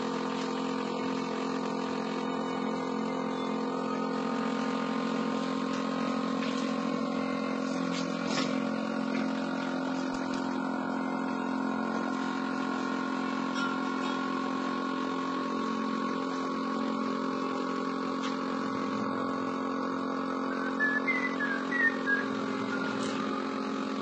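Small electric bottle-filling machine running with a steady hum, its pump drawing wine through the tubes into a glass bottle. Near the end there are a few brief squeaks and knocks as a filled bottle is handled.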